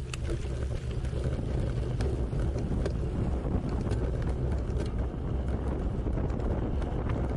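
Wind buffeting the microphone over a steady low rumble, with a few faint clicks.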